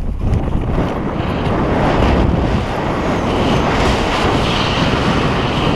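Wind blowing hard and steadily over the microphone as a paraglider inflates and lifts off into flight.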